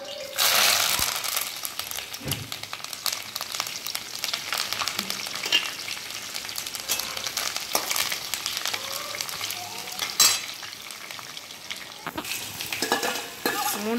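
Hot oil sizzling loudly as sliced onions, dried red chillies and curry leaves are tipped into a kadai for tempering, then crackling and spluttering with many small pops. A metal spatula stirs the mixture against the pan.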